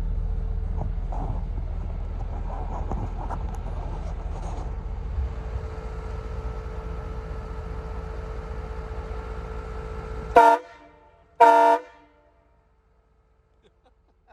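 Low steady rumble of the parked truck idling, then two short, very loud blasts of a Hornblaster Outlaw 232 three-trumpet air train horn about a second apart, the second a little longer.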